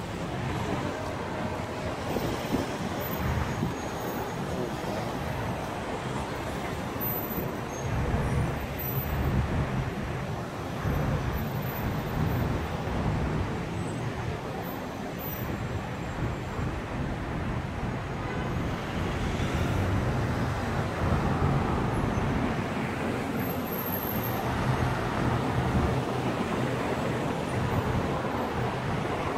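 Road traffic noise: a steady wash of passing cars and engines with a low rumble that swells and eases.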